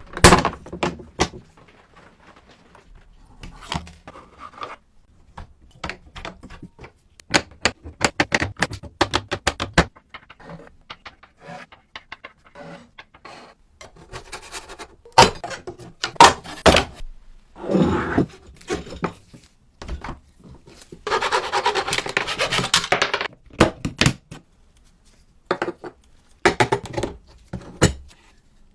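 Irregular knocks, taps and light clinks of an old mini soccer game's parts being handled and worked on, with a dense scraping or scrubbing noise for about two seconds around three-quarters of the way through.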